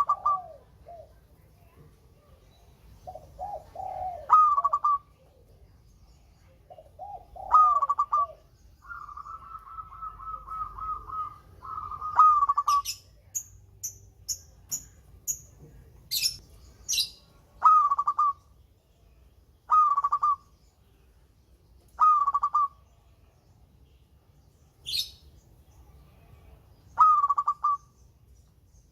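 Zebra dove (perkutut) cooing: low rolling notes leading into clear higher coos, a long rolling trill about a third of the way in, then single coos about every two seconds. A smaller bird's sharp high chirps break in several times in the middle and once more later.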